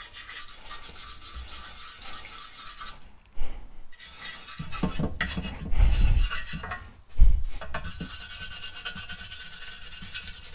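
A toothbrush scrubbing caked oil residue wet with citrus degreaser inside an engine oil pan: a steady scratchy rubbing. A few dull knocks come around the middle, the loudest about six and seven seconds in.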